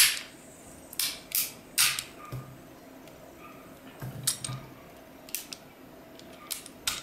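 Intermittent sharp metallic clicks and clacks from handling the full-metal slide of a KJ Works P226 CO2 airsoft pistol, with a few loud ones in the first two seconds and lighter ones later.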